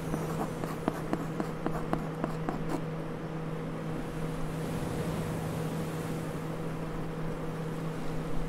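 A steady low hum, with a quick run of light clicks during the first three seconds.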